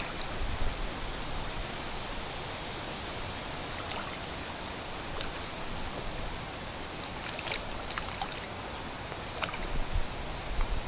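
Steady rushing noise of a breeze over a rippled lake and small water movement at the shore, with low wind buffets on the microphone near the start and near the end and a few faint clicks.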